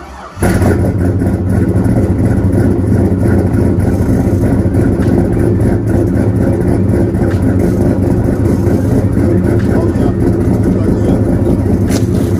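Chevrolet C10's cammed 5.3-litre LS V8 running at a steady cold-start idle, heard loud at the tailpipe. The engine sound sets in about half a second in.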